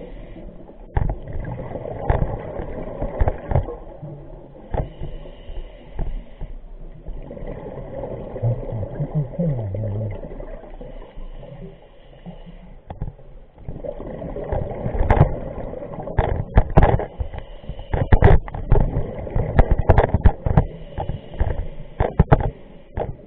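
Scuba diver's regulator breathing heard underwater: a hiss with each inhale, about every six seconds, and crackling, rumbling rushes of exhaled bubbles, thickest in the second half.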